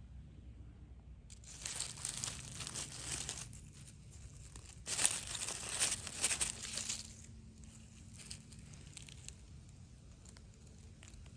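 Dry leaf litter and twigs rustling and crackling as a hand digs into the forest floor to pick a mushroom, in two bursts, the second the louder.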